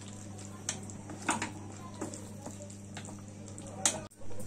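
Wooden slotted spatula stirring a thick curry in a nonstick pan, with a few soft scrapes and taps against the pan over a steady low hum.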